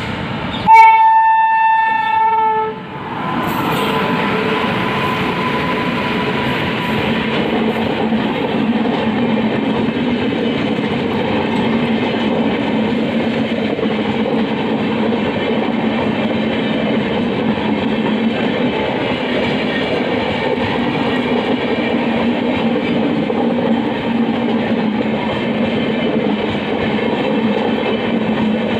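An Indian Railways electric locomotive sounds one horn blast of about two seconds. Its train of LHB passenger coaches then rolls past close by at a steady pace.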